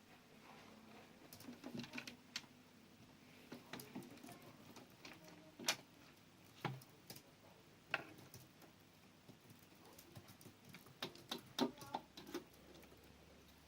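Scattered light taps and clicks at uneven intervals, a few sharper ones in the middle and a quicker cluster near the end.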